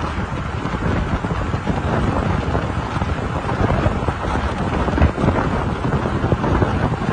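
Wind buffeting the microphone of a camera moving with a group of road cyclists: a loud, steady, deep rush of noise with no clear tone.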